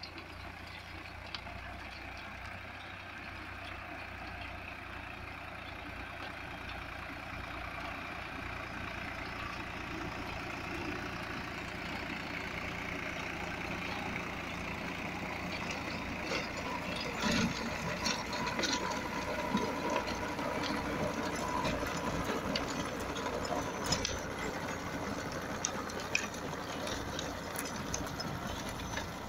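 Swaraj 744 FE tractor's three-cylinder diesel engine running steadily under load while driving a rotavator through dry soil, growing gradually louder. Scattered sharp clicks and knocks in the second half.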